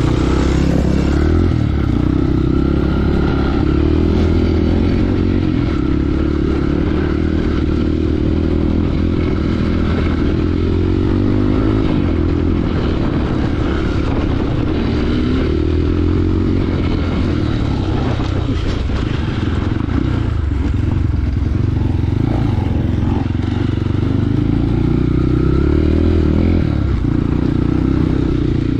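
Trail motorcycle engine running under way, its pitch rising and falling a little as the throttle changes.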